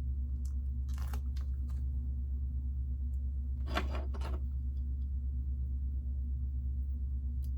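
Steady low electrical hum, with light clicks and rustling of small Lego plastic pieces being handled and pressed together: a few clicks about a second in and a denser clatter about four seconds in.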